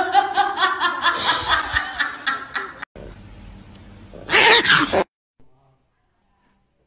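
A person laughing hard in a quick run of repeated pitched bursts. About four and a half seconds in comes a short, loud, harsh outburst, and then the sound cuts off abruptly.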